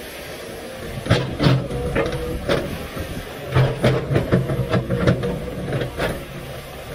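Komatsu PC500LC excavator's diesel engine running under load as its bucket digs into rocky soil, with irregular scraping and clattering of stones against the bucket starting about a second in.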